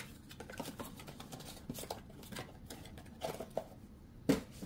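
Quiet room tone with faint scattered small clicks and rustles, and one sharper click about four seconds in.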